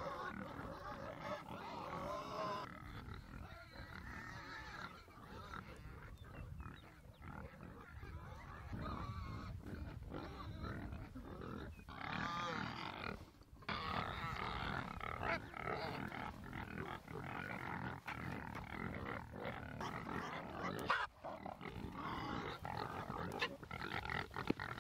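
A group of pigs grunting continuously and irregularly as they crowd together at their feed.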